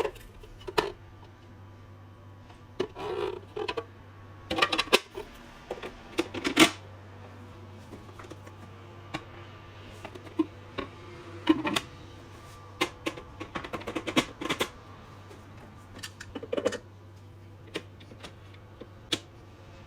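Irregular clicks, knocks and short rustles of hands unpacking and handling a coffee machine, its plastic parts and packaging, over a steady low hum.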